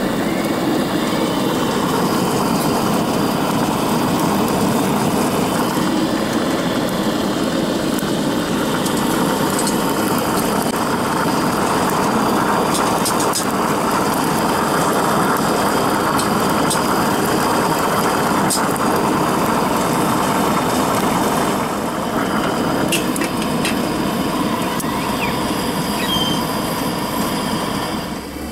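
Steady rushing roar of a Coleman camp stove's gas burner running full under a steaming pot, with a few light clicks.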